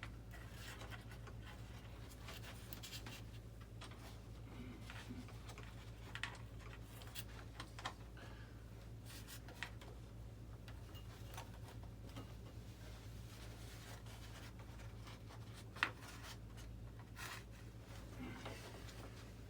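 Close-up handling: wire leads and a hooked wire scraping and rubbing through a channel in a foam model-jet airframe, with scattered small clicks and one sharper click near the end, over a steady low hum.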